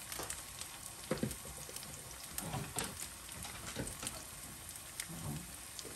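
Potatoes frying in hot oil in a pan: a steady sizzle with scattered crackles and a few knocks.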